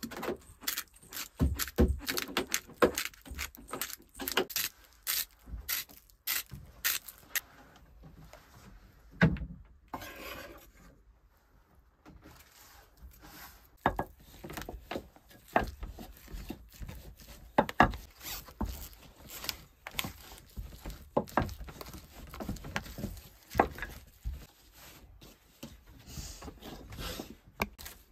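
Irregular knocks, clicks and scraping of things being handled on wooden surfaces, with a quieter lull about ten seconds in.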